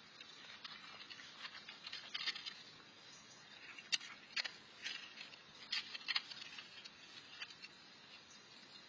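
Raccoons eating dry food from a metal tray: irregular crunches and clicks, bunched in short runs, heaviest in the middle, over a steady hiss.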